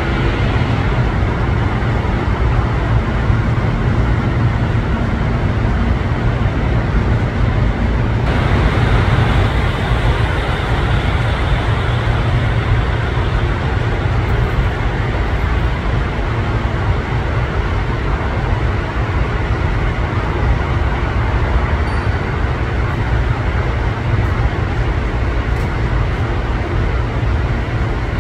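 Jet engine noise from an Airbus A320neo airliner on approach and landing: a loud, steady, deep noise with no distinct whine. The tone shifts slightly about eight seconds in.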